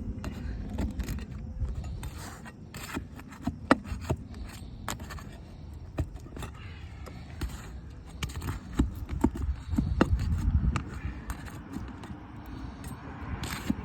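Hand tools scraping and clicking against asphalt roof shingles as a damaged shingle is worked loose, its seals broken and nails pulled, with many short sharp clicks throughout.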